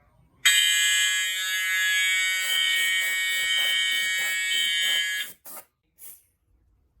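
Fire alarm horn sounding a steady, loud tone for about five seconds, with a rapid pulsing joining in about halfway, then cutting off suddenly, followed by two short blips.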